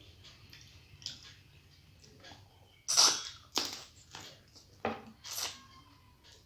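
A person eating close to the microphone: quiet chewing, then four sharp, loud, wet mouth smacks in the second half.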